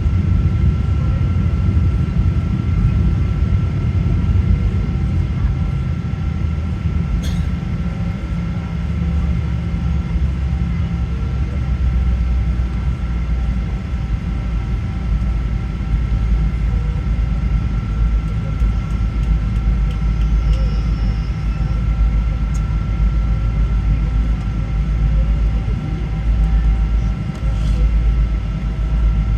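British Airways Boeing 777-200 heard from the passenger cabin during departure: steady jet-engine hum with constant tones over a heavy low rumble that deepens about eight seconds in, with a couple of faint clicks.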